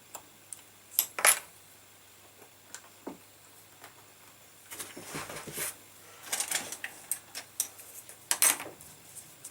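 Metal hand tools clinking and clattering on a workbench: a few sharp metallic clicks, about a second in and again near the end, with scraping and rattling between.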